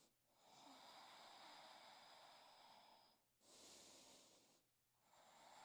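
Faint breathing through the nose: a long breath of almost three seconds, a short one, then another beginning near the end.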